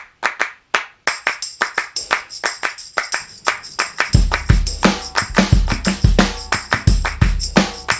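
Background music with a quick, steady percussive beat of claps or tambourine hits. A heavy bass drum comes in about four seconds in.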